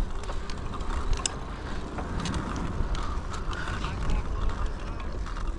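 Electric bike riding over rough ground, its parts clicking and rattling irregularly, over a steady low rumble of wind on the microphone.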